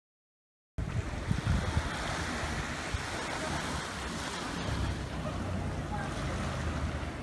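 Small waves washing onto a sandy beach, with wind buffeting the microphone in a low rumble. The sound only comes in about a second in, after a moment of total silence.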